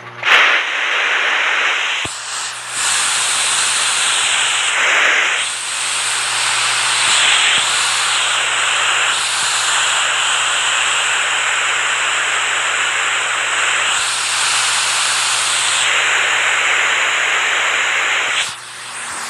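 Rushing water: a loud, even hiss of falling or spraying water that shifts in character a couple of times, with a brief dip near the end.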